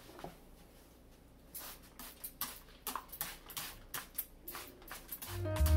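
A spray bottle squirting cleaner over a bare electric stovetop: a quick run of short sprays, about three or four a second, starting a second and a half in. Background music comes in just before the end.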